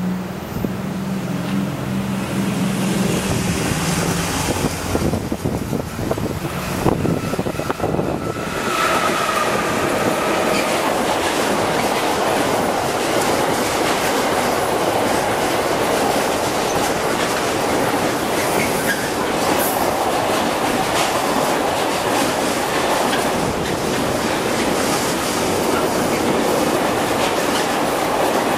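A container freight train hauled by BLS and Railpool electric locomotives comes up and passes close by. Its approach carries a low hum, then a long run of container wagons rolls past in a steady loud rumble with clickety-clack from the wheels over the rail joints.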